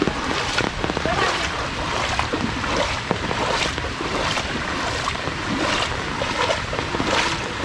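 Heavy rain falling on floodwater and foliage, a steady hiss with scattered drips and splashes.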